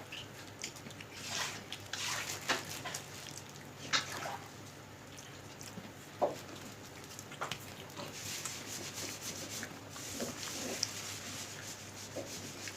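Eating sounds during a khichdi mukbang: scattered short smacks, clicks and soft scrapes of mouth and utensils, over a faint steady hum.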